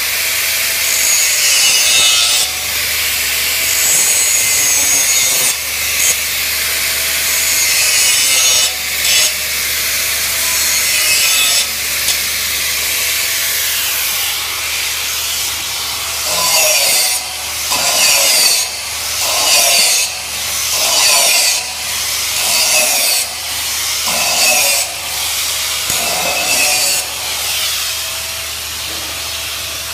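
Flux-cored arc welding: the arc's harsh crackling hiss, broken by brief stops every few seconds. In the second half it comes in louder surges about every second and a half, over a steady low hum.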